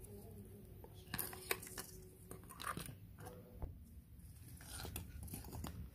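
Faint scattered clicks and rustles of a handheld angle grinder and its rubber power cord being picked up and handled; the grinder is unplugged and not running.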